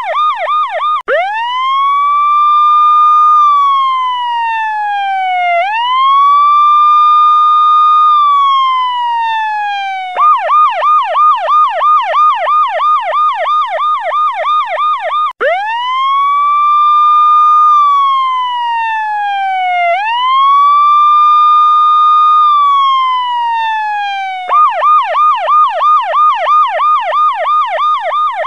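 Electronic police-style siren alarm alternating between its two modes. Fast yelps at about four sweeps a second give way about a second in to two slow wails, each rising, holding and then gliding down. Fast yelping returns near ten seconds, then two more slow wails, then yelping again near the end.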